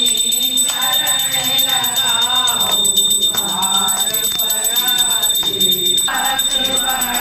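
Several voices singing an aarti hymn together, with a small hand bell rung rapidly and steadily throughout.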